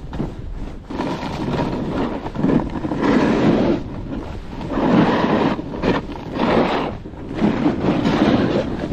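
Wind rushing over the microphone and edges scraping across packed snow during a fast downhill run, swelling and easing in turn after turn, about one surge every one and a half to two seconds.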